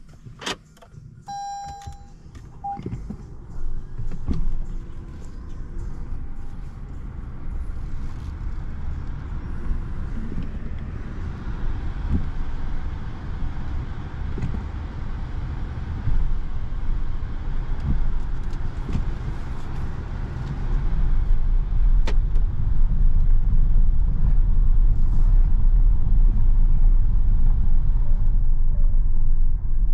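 Inside the cabin of a 2022 Peugeot e-2008 electric SUV rolling over cobblestones: tyre rumble with scattered thumps and no engine sound, getting louder and deeper about two-thirds of the way in. A short beep sounds about a second in.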